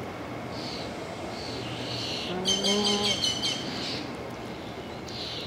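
Nēnē (Hawaiian goose) giving one short, low, even call about halfway through, while a small bird's quick high chirping trill sounds at the same moment; faint high chirps come and go.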